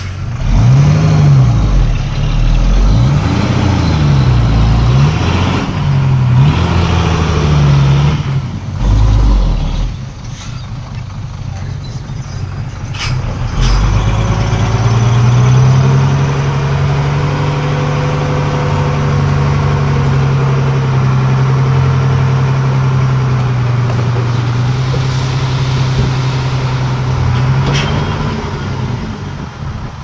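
Heavy-equipment diesel engine revving up and down again and again, then held at a steady speed. A sharp knock comes about thirteen seconds in.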